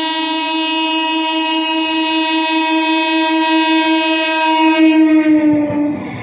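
An EMU local train's horn sounding one long, loud, steady note that dips slightly in pitch and cuts off near the end, giving way to the rumble and clatter of the train's wheels.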